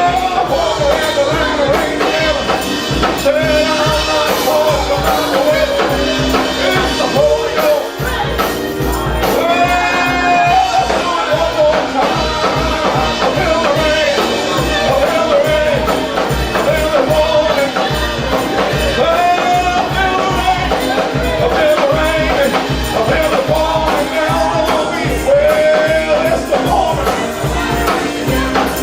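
Live gospel music: a band playing an upbeat song with a steady beat, with singing over it.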